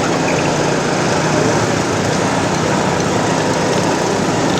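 Motorcycle engine running steadily while riding, mixed with a dense rush of wind and road noise.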